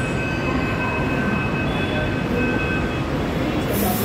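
Mumbai Metro train standing at the platform: a steady rumble with a thin, high electric whine that fades out about three seconds in. A sharp hiss starts near the end.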